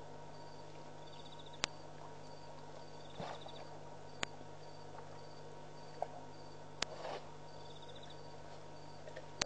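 Night insects, crickets, chirping in a steady, evenly spaced high pulse, with a second short trill now and then. Sharp clicks come about every two and a half seconds, with a couple of brief rustles, over a steady low hum.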